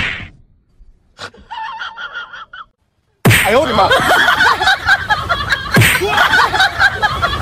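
A short burst at the very start, then near silence. About three seconds in, loud crowd noise cuts in suddenly: many voices at once, gasping and laughing, with a sharp smack a few seconds later.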